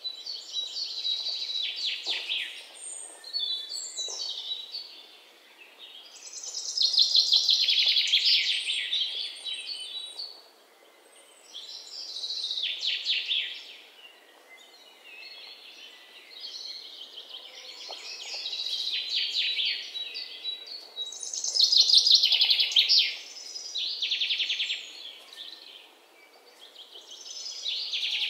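Birdsong: a songbird singing bursts of rapid trilled phrases, one every few seconds.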